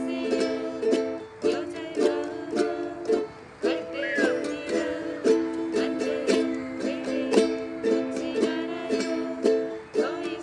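Ukulele chords strummed in a steady rhythm, several strokes a second, with short breaks about a second and three and a half seconds in.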